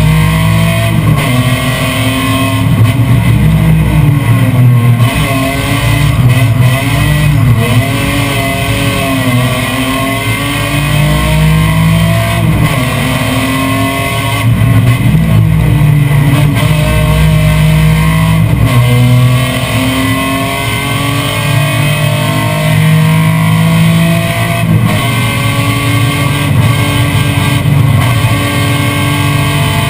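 BMW M3 race car engine heard from inside the stripped cabin, revving up and dropping back repeatedly as it is driven hard through the gears and corners. Rock music with guitar plays over the engine.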